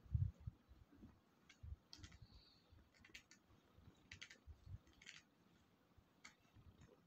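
Faint, scattered little mouth clicks of a grown cat suckling at another cat's belly, about one a second, with a few soft low thumps near the start; otherwise near silence.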